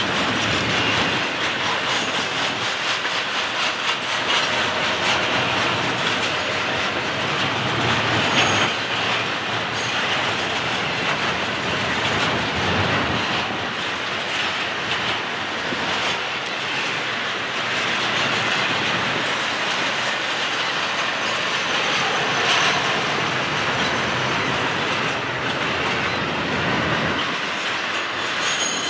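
Union Pacific double-stack container train's well cars rolling steadily past: the steady running noise of steel wheels on rail, with clicking over the rail joints and now and then a brief high wheel squeal.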